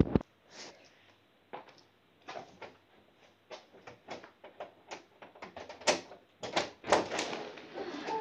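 Front door being unlocked and opened: a run of clicks, rattles and knocks from the handle and lock, with the loudest clunks about six to seven seconds in.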